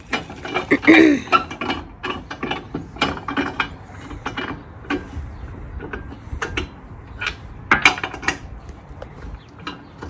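Irregular metallic clicks and clinks from wheel bolts being turned by hand into a spare wheel hung on a rear tyre carrier.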